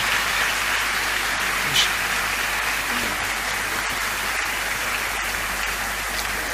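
Large seated audience applauding steadily, easing slightly toward the end.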